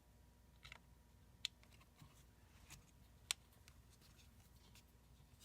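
Near silence with a few faint clicks of a tiny screw and small screwdriver being worked into a laptop's fan mount, two of them sharper ticks, one about a second and a half in and another about two seconds later.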